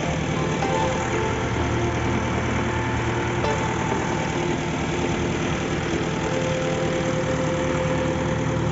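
An engine running steadily: a low hum under a broad rushing noise.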